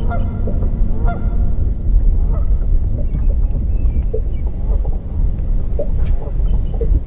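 Geese honking, short calls roughly once a second, over a steady low rumble of wind on the microphone.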